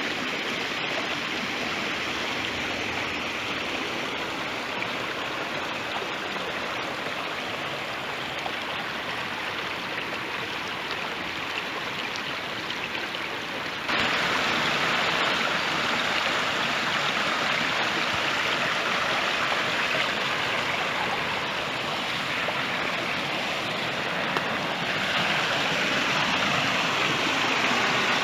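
Hill stream running, a steady rush of water over its bed. It jumps suddenly louder about halfway through.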